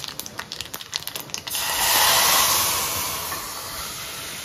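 Spices crackling and spluttering in hot oil in a small aluminium pot as a tempering for dal. About a second and a half in, a loud sizzle bursts up and slowly dies away as the cooked dal is poured into the hot tempering.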